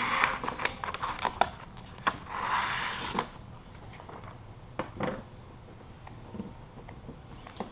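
Vinyl graphic and its paper backing liner being handled, peeled back and cut: two spells of rustling and rubbing, with scattered light clicks and taps.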